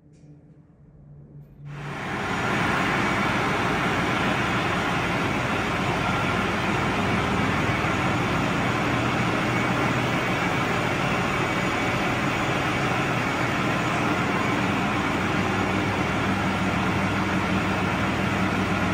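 New Holland Workmaster 75 tractor's diesel engine running steadily as the tractor creeps forward. It comes in abruptly about two seconds in, then holds an even, unchanging note.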